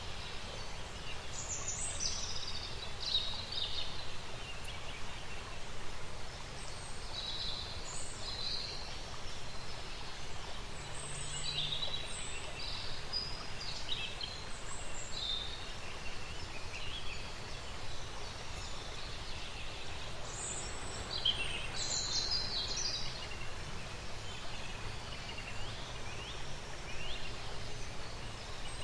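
Small birds chirping in short, scattered calls and quick whistled glides over a steady background hiss: a countryside nature ambience.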